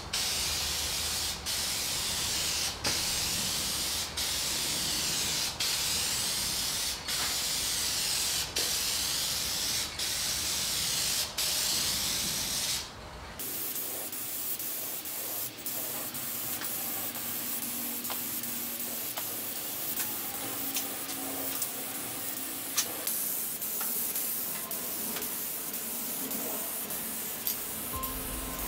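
Aerosol can of Deft clear spray lacquer hissing in repeated passes, with a brief break about every second and a half. About halfway through, the spraying drops to a quieter, steady hiss.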